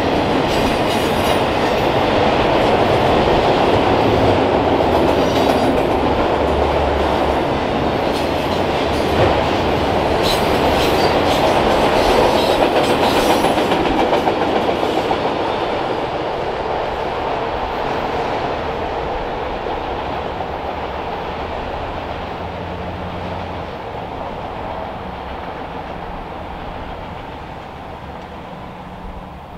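Norfolk Southern freight train of autorack cars rolling past: steady rumble and clatter of steel wheels on the rails. It fades from about halfway through as the last cars go by and the train moves away.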